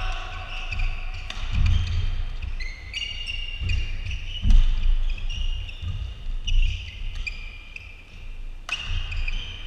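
A badminton doubles rally: shoes squeaking on the court mat and feet thudding as the players move, with a few sharp racket strikes on the shuttlecock.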